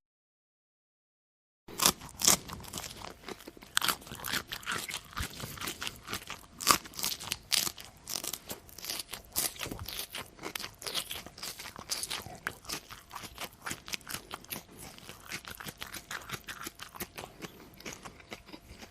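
A person chewing crunchy food with the mouth close to the microphone: a dense, irregular run of sharp crunches that starts about a second and a half in and grows quieter near the end.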